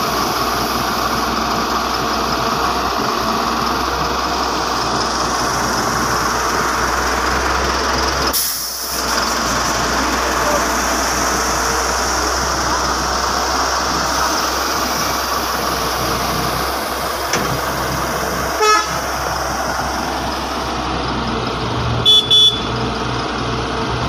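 Diesel engines of an excavator and a dump truck running steadily, with a brief drop about a third of the way in. Near the end a short horn toot is heard, followed by two quick toots.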